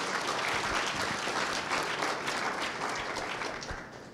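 An audience applauding at the end of a talk: a steady patter of many hands clapping that dies away over the last second or so.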